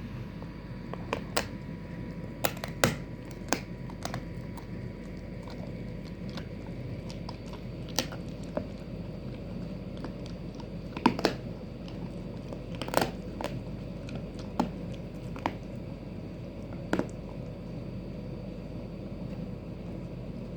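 A Doberman crunching a cow bone in its jaws: sharp, irregular cracks and crunches, some in quick pairs, with quiet gaps of a few seconds between them.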